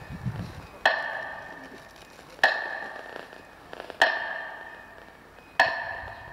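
Four slow, evenly spaced ringing strikes, about one every second and a half, each dying away before the next: a measured beat marking a minute of silence.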